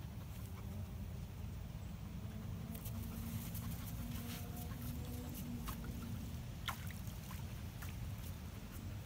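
Lake water splashing and trickling at the shoreline over a steady low rumble, with a few faint clicks.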